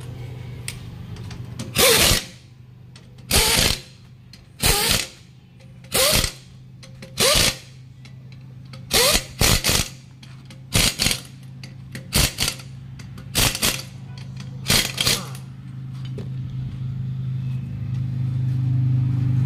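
Pneumatic impact wrench running in about a dozen short bursts as it drives the wheel nuts onto a tractor's front wheel; the later bursts come in quick pairs. A steady low hum runs underneath and grows louder near the end.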